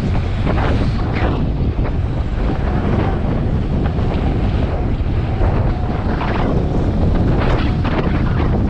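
Loud, steady wind buffeting a GoPro's microphone as a BMX bike coasts fast down an asphalt road.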